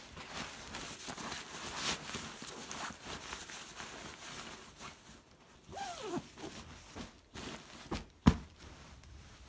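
Satin pillowcase fabric rustling and swishing as cushions are worked into their covers by hand, with a short falling squeak just past the middle and a sharp thump about eight seconds in.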